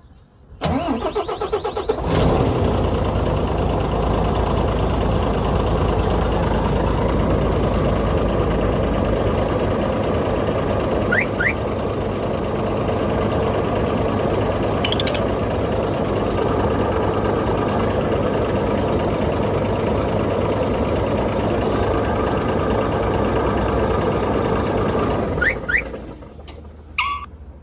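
Volvo Euro 6 truck's diesel engine cranking and catching about half a second in, running steadily, then shutting off a couple of seconds before the end. A few short high chirps follow the shutdown.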